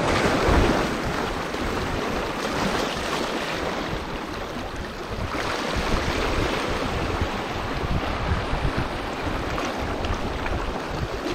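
Small sea waves washing and foaming over shoreline rocks, with wind buffeting the microphone. The surf swells near the start and again about five and a half seconds in.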